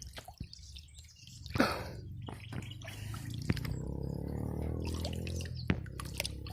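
Small stream water trickling and dripping, with scattered light clicks and a brief louder sound about one and a half seconds in; a low rumble comes in from about halfway.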